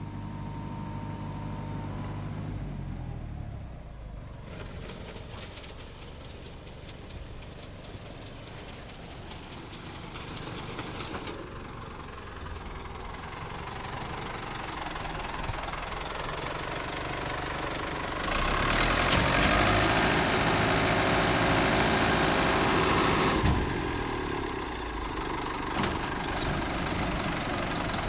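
1978 Ford 7700 tractor's diesel engine running while pulling a New Holland 850 round baler through the hay. The sound swells noticeably louder for about five seconds past the middle, then eases back.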